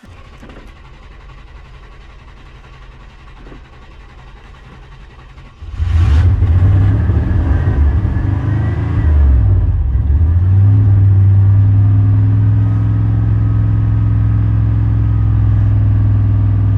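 A vehicle engine fires up about six seconds in and revs unevenly for a few seconds, then settles into a steady fast idle with the accelerator held down. It starts after several failed tries, which the owner puts down to a battery run too low.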